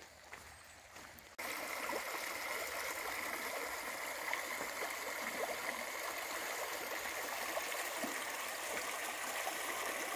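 Shallow stream running over stones and pebbles: a steady babbling rush that starts abruptly about a second in.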